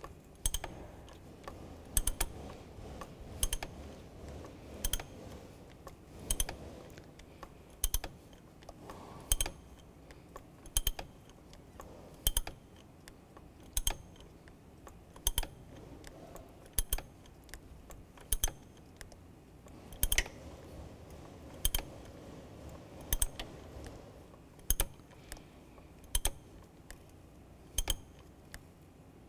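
Hand ratchet clicking in short bursts about every second and a half, one burst on each back-swing, as it tightens the oil filter cap on a Chevy Cruze oil filter housing.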